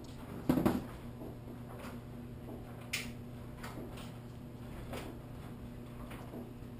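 Handling noises from a micro quadcopter held in the hands: a knock about half a second in, then a sharp click and scattered small plastic clicks and taps, over a low steady hum.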